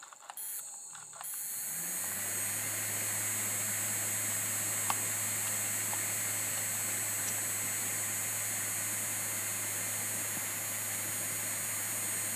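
3D-printed ducted fan of a model RC jet engine spinning up over the first couple of seconds, then running at a steady speed: a low hum with a rush of air and a high whine above it.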